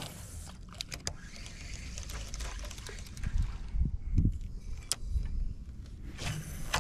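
Spinning reel cranked to retrieve a cast lure, with a few sharp clicks and faint handling noise.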